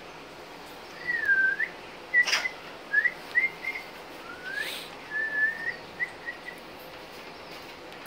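African grey parrot whistling a string of short gliding whistles and chirps at much the same pitch, one dipping, others rising, with two sharp clicks mixed in.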